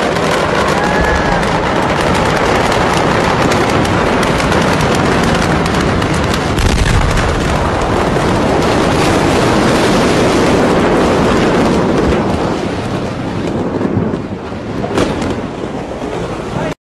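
Fireworks burning in a warehouse fire: a dense, continuous crackling of rapid pops like machine-gun fire, with a deep thud about seven seconds in, thinning out near the end.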